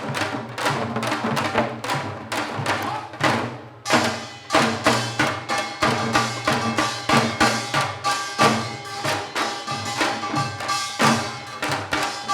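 Janggu (Korean hourglass drum) played in fast, dense rhythmic strokes in seoljanggo style, with a short lull about four seconds in before the drumming picks up again.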